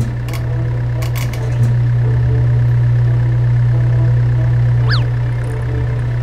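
A steady, low engine drone, like a large vehicle's engine running, starts suddenly and holds evenly throughout.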